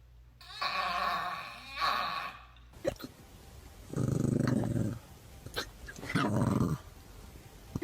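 A dog making strange growling noises: a higher, noisy sound lasting about two seconds near the start, then two low growls, one about four seconds in and one about six seconds in.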